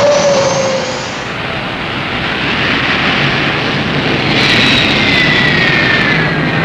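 Douglas DC-8 jet engine starting: a rising turbine whine over a steady rush of air. About four seconds in, a different jet whine comes in and falls slowly in pitch.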